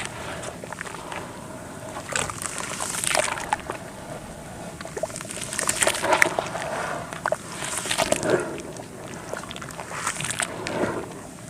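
Dry red dirt being crumbled and dipped in water: gritty crackling crumbles and wet sloshing in irregular bursts every two or three seconds.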